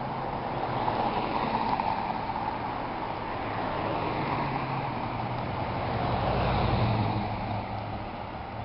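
Steady road traffic with cars passing; one vehicle passes closer about six to seven seconds in, bringing a low engine hum with it.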